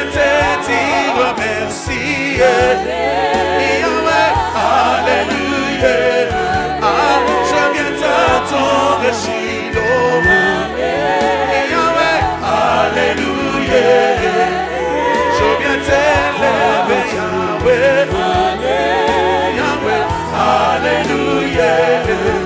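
Congolese gospel worship music: a choir and lead voices singing with vibrato over a steady bass line.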